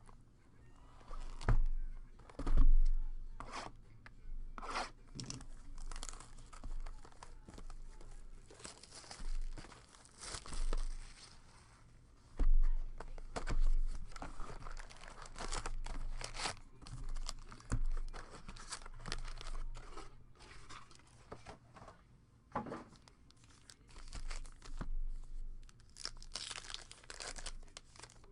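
2017 Topps Archives baseball card packaging being torn open and handled: irregular tearing and crinkling of wrappers, with sharp crackles and a few dull knocks, the loudest about two and a half seconds in and again about twelve seconds in.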